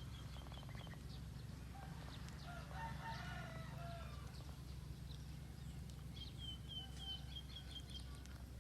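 A rooster crowing faintly, one call of about two seconds near the middle. A small bird gives quick runs of high chirps near the start and again near the end, over a steady low hum.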